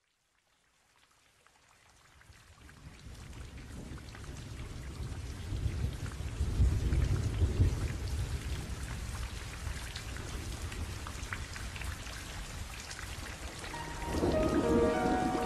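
Steady rain fading in, with a low rolling rumble of thunder swelling about halfway through. Music comes in near the end.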